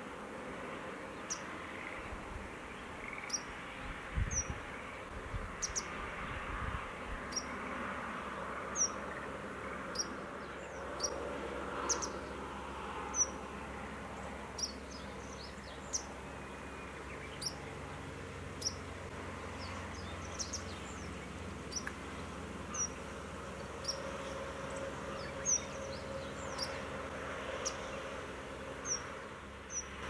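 Short, sharp, high call notes from a small bird, repeated irregularly about once a second over a steady background hiss.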